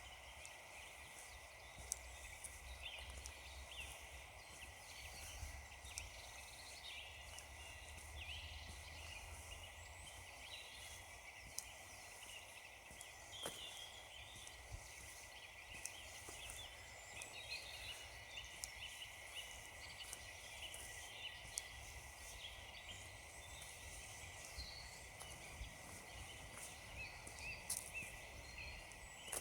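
Faint chorus of small woodland birds chirping and calling, with many short calls overlapping, over a low rumble and a few isolated clicks.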